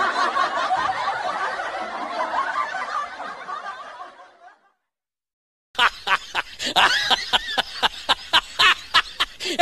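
A dense murmur of laughter fades out about halfway through. After a brief silence, a quick run of sharp, short snickering laughs starts.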